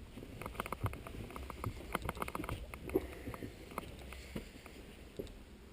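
Footsteps crunching over debris, with scattered light clicks and knocks over a low rumble and one sharper knock about three seconds in.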